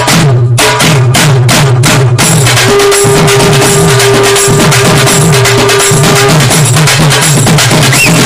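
Background music with a steady drum beat and a repeating bass line, with a held note in the middle.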